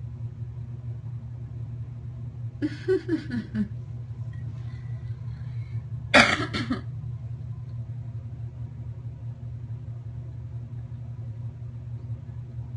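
A person coughs once, sharply, about six seconds in, over a steady low hum. Around three seconds in there is a shorter, softer vocal sound with a falling pitch, like a breathy chuckle.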